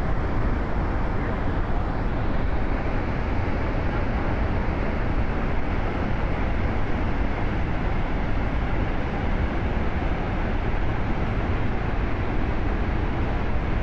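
Steady rushing noise of a large waterfall, even and unbroken, heaviest in the low end.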